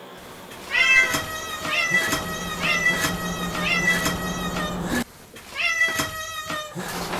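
Domestic cat meowing repeatedly, about one short pitched meow a second, with a brief break about five seconds in: greeting meows for its owners arriving home.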